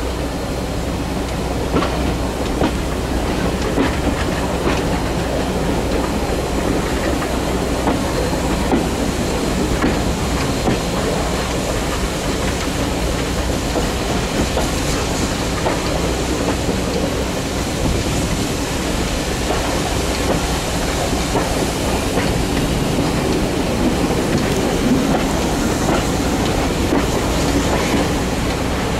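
Steam-hauled heritage train running along the line, heard from a carriage window: a steady rumble and rattle of the coaches' wheels on the track, with occasional clicks at rail joints.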